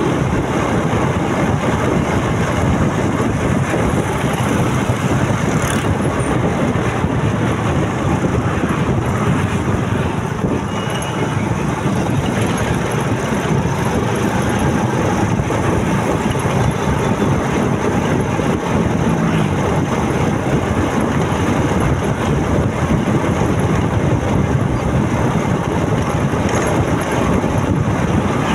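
A motorcycle being ridden: a steady, loud rush of wind and road noise with the engine running.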